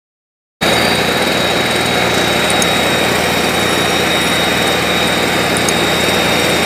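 STIHL backpack mist blower's two-stroke engine running steadily at speed, with a steady high whine over it. It cuts in abruptly about half a second in.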